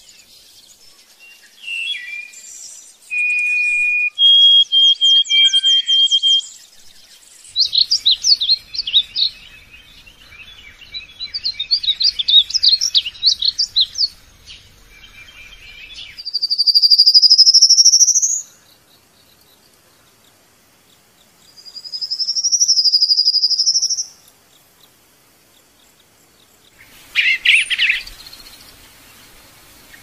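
Songbirds singing: short clear whistles and quick trills, then two long, loud rising whistles that are the loudest calls, and a short harsh burst near the end.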